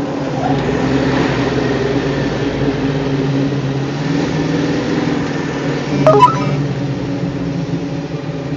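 International Scout II's 345 V8 engine running steadily, with a single brief, sharp pop about six seconds in. This is the annoying, popcorn-like popping whose cause is being chased.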